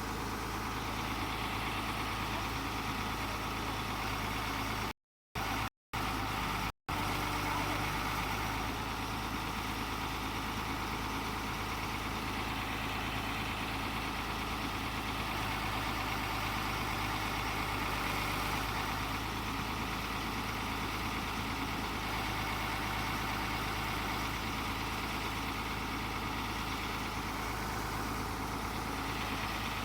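Tata Hitachi 200 excavator's diesel engine running steadily. The sound drops out briefly a few times about five to seven seconds in.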